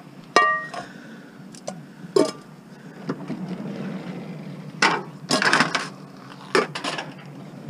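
Metal cooking pots clanging and clattering as they are picked up and loaded into a car among scrap metal: one ringing clang about half a second in, a knock near two seconds, then a flurry of clatters around five seconds in and a couple more near the end, over a steady low hum.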